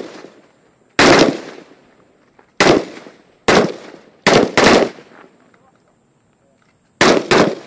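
Small-arms gunshots: seven single shots at an uneven pace, two of them in quick pairs, each followed by a short echoing tail.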